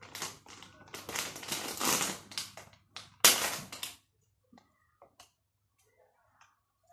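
A plastic sweet packet crinkling and rustling as it is pulled open by hand, with one sharp, loudest crackle about three seconds in. After about four seconds only a few faint ticks remain.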